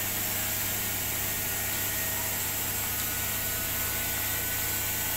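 Bosch WAE20462TR front-loading washing machine running in its final spin phase: a steady hum with a faint motor whine.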